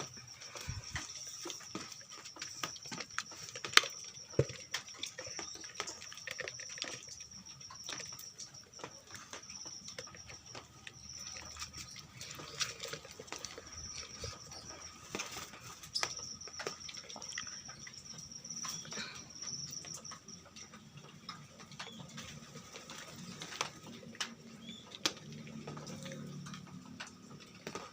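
Orange-headed thrushes moving about a colony aviary: scattered wing flutters and small clicks and knocks from hopping on perches and the cage. A steady thin high-pitched tone runs underneath.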